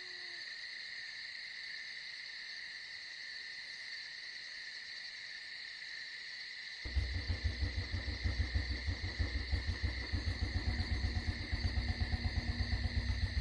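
Night insects, crickets or similar, chirring in a steady high chorus. About halfway in, a louder low rhythmic pulsing starts suddenly, about four pulses a second, and runs on over it.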